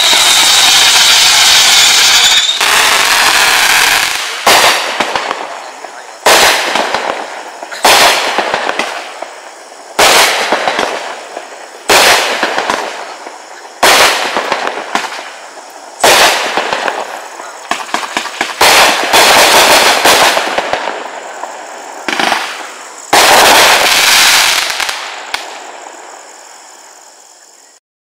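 Black Market Fireworks 'Deep Ocean' 45-shot 500-gram fireworks cake firing. It begins with a dense, unbroken volley for the first couple of seconds, then sends up single shots about every two seconds, each a sudden loud report that fades away, with two shots close together near the end.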